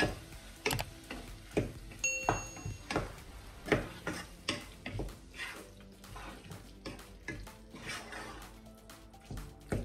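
A cooking utensil stirring a thick mixture of prawns and ground sweet corn in a pot, scraping and knocking against the pot about once or twice a second.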